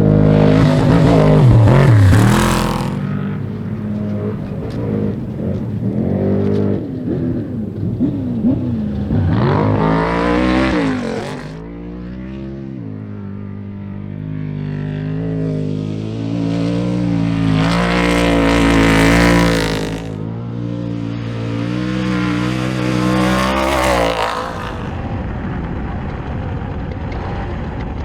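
Race car engine at full throttle on a timed qualifying run, climbing in pitch as it accelerates, then dropping as it lifts. The cycle repeats roughly every eight seconds.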